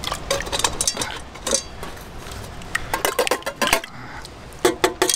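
A steel tin can knocked and shaken against the rim of a stainless steel pot to empty ravioli out of it: a run of metallic clinks and knocks, ending in a louder quick series of taps, about five a second.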